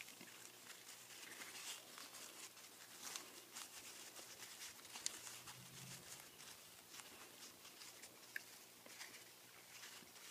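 Faint rustling and crackling of grosgrain ribbon as a finished bow's loops are opened out and shaped by hand, many small irregular crinkles with a couple of sharper ticks.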